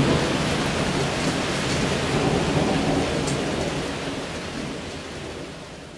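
Heavy rain falling steadily in a thunderstorm, with a low rumble of thunder underneath. The sound fades out over the last two seconds or so.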